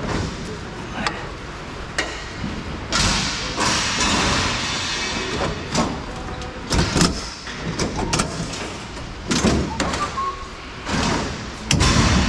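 Scrap metal being pulled off a loaded trailer cage: repeated metal clanks and bangs with scraping drags, the loudest near the end.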